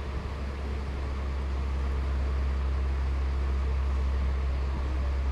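A steady low droning hum under an even background hiss, unchanging throughout.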